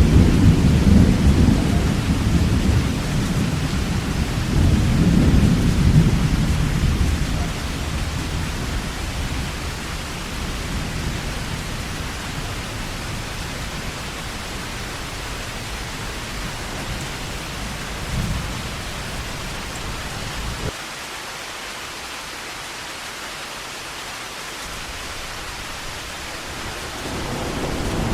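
Heavy rain falling steadily with rolling thunder. A long, loud rumble fills the first several seconds and fades, a short rumble comes about 18 seconds in, and another builds near the end.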